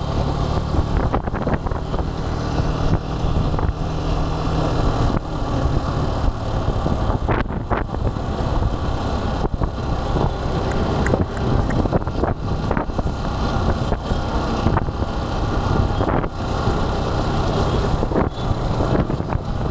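Motorcycle engine running steadily while riding, with wind buffeting the microphone and road noise.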